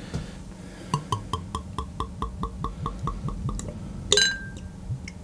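Beer glugging out of a glass bottle into a tilted glass: a quick, even run of about five glugs a second for nearly three seconds. After the glugs stop comes a single glass clink that rings briefly.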